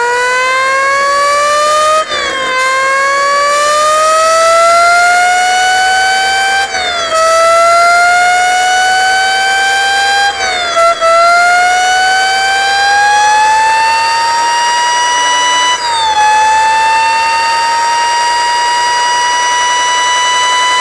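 Homemade Formula 1 car sound effect: a high, engine-like whine that climbs in pitch and drops sharply four times, like a racing engine shifting up through the gears, then holds a steady pitch.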